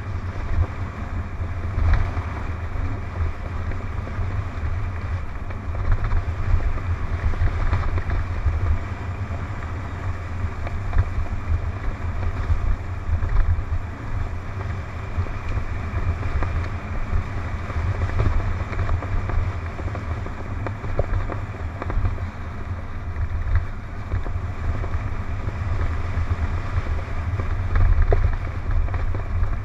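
Wind noise on a helmet-mounted camera's microphone over the rumble and rattle of a mountain bike riding fast down a rough dirt trail, with scattered knocks from bumps.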